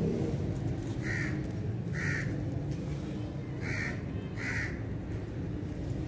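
Four short, harsh, crow-like bird calls, spaced a second or so apart, over a steady low rumble.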